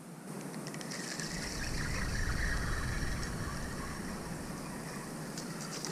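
Spinning fishing reel being cranked, a steady mechanical whirr as a hooked fish is reeled in, with a low rumble underneath that is loudest around two seconds in.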